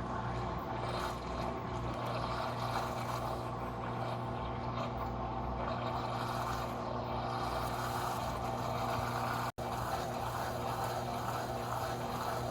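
Electrolux LTD06 top-loading washing machine running a small load on its Quick programme: a steady motor hum under a constant churning, swishing noise. The sound drops out for an instant about nine and a half seconds in, then carries on as before.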